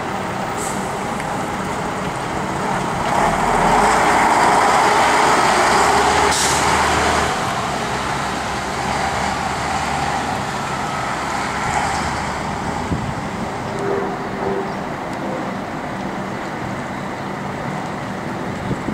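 Buses' engines running and moving off with road traffic, growing louder as one runs close for a few seconds about three seconds in. A short hiss of air, typical of a bus's air brakes, comes about six seconds in.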